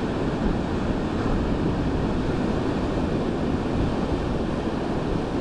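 Ocean surf breaking and washing over a rocky shore as a steady rush, with wind buffeting the microphone.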